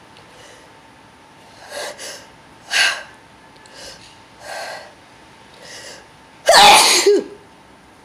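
A man sneezing once, loudly, about six and a half seconds in, the sneeze ending on a voiced 'choo'. Several shorter, quieter bursts of breath come before it as the sneeze builds.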